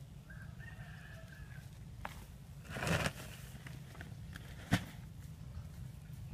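A rooster crows faintly, one held call about half a second in. Then dry coconut husk fibre rustles in a short loud rush as it is pressed onto a small fire, and a single sharp crack follows a couple of seconds later.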